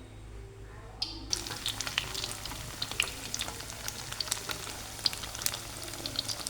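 Rice corn dog frying in hot oil: a sizzle that starts suddenly about a second in, then keeps crackling with many sharp pops.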